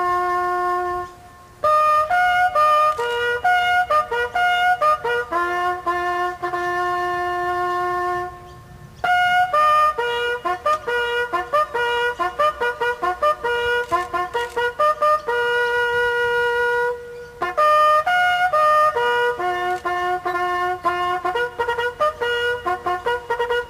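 A ceremonial bugle call played solo on a trumpet or bugle. It moves one note at a time through the bugle's natural notes, with long held notes and quick runs, and pauses for breath three times.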